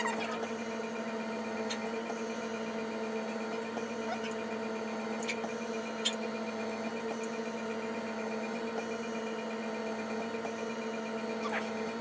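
Steady electrical hum made of a low tone and a higher tone with fainter overtones, broken by a few faint clicks, the sharpest about six seconds in.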